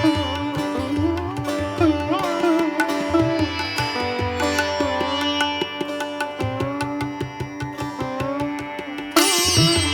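Instrumental background music: a plucked-string melody with bending notes over a drum rhythm, swelling louder and brighter about nine seconds in.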